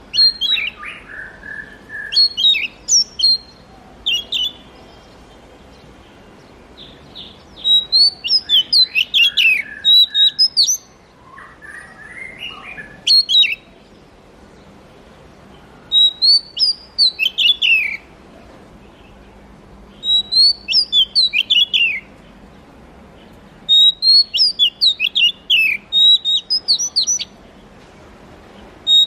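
Oriental magpie-robin singing: varied phrases of whistled, sliding notes and quick chirps, given in bursts of one to four seconds with short pauses between them.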